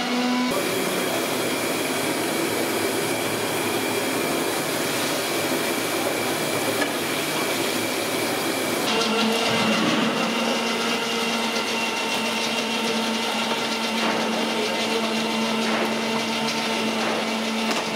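Steady mechanical drone with a hiss, like a motor running, whose tone shifts abruptly about half a second in and again about nine seconds in.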